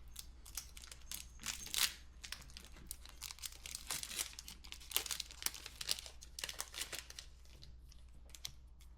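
Foil Pokémon booster pack wrapper being torn open and crinkled by hand, a steady run of small crackles with denser bursts about two seconds in and again in the middle.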